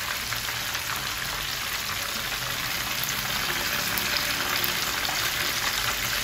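Croaker fish frying in a pan of hot oil: a steady sizzle with many small crackles from the bubbling oil.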